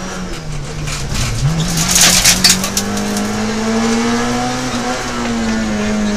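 Peugeot 106 XSi rally car's four-cylinder engine heard from inside the cabin, dipping and jumping in revs about a second in, then pulling with steadily climbing revs and easing off near the end. A burst of sharp clattering comes about two seconds in.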